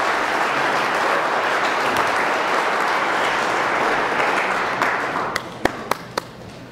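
Audience applauding, a dense steady clapping that dies away about five seconds in, ending with a few separate last claps.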